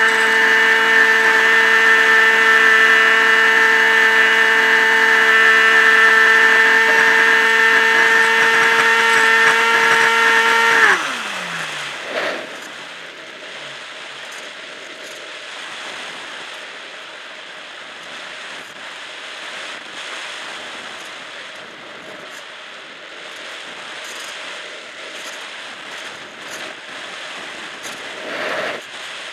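Electric pusher motor and propeller of a Multiplex EasyStar RC glider, heard from an onboard camera, running with a steady high whine. About eleven seconds in the motor is cut and its pitch falls away. After that a steady rush of air can be heard as the plane glides, broken by two brief blips of the motor, one just after the cut and one near the end.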